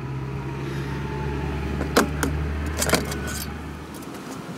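A steady low mechanical hum that fades away near the end, with a few light metallic clicks about two and three seconds in, like small tools handled at the open valve gear of a cold GY6 scooter engine.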